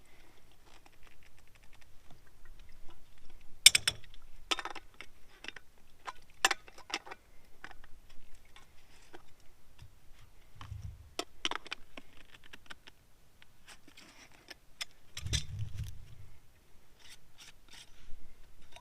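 Hands working PVC pipe and fittings during a plumbing repair: scattered clicks, taps and scrapes of plastic parts and a primer applicator, with a couple of dull thumps.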